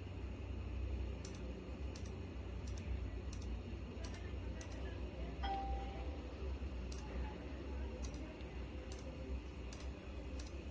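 Clicky optical switches of a Razer Huntsman Mini keyboard pressed one at a time, a sharp click about every two-thirds of a second, with a pause about halfway. A steady low hum runs underneath, and a short ding sounds about halfway through.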